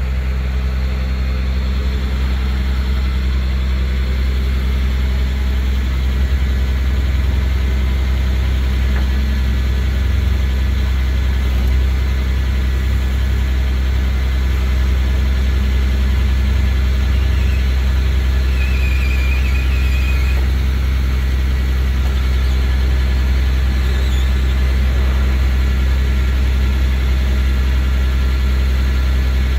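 Rollback tow truck's engine running at a steady idle while the tilted bed is worked, with a brief faint high squeal about two-thirds of the way in.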